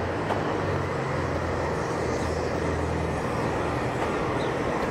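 Steady industrial drone from a potash mill: a constant low hum under an even noisy rush, unchanging throughout.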